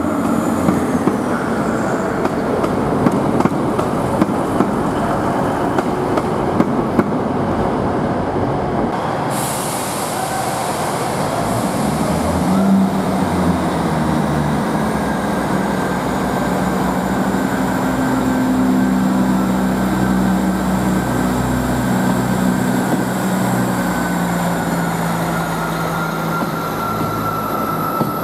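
A Class 185 diesel multiple unit pulls out, its wheels clicking sharply over the rail joints for the first several seconds. Then a Class 158 diesel multiple unit's engines run with a steady drone while the train moves off, with a faint high whine over it.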